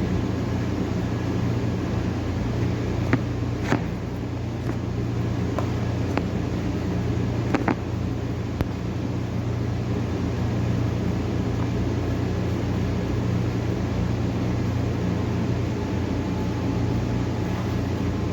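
Steady low machine hum throughout, with a few light clicks in the first half as the spring roll wrappers are handled.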